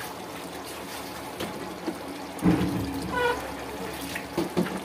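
Chicken curry bubbling and sizzling gently as it fries on low flame in an aluminium pot, with a thump about two and a half seconds in.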